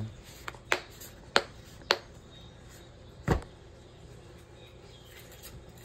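Latches of a small hard plastic case snapping shut: three sharp clicks about half a second apart, then a dull knock as the case is set down.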